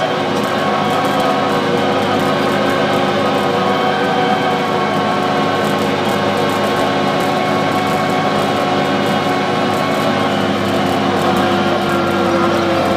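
Tractor engine running steadily under load while pulling a ploughing implement through stubble, a constant drone with a hum of fixed tones.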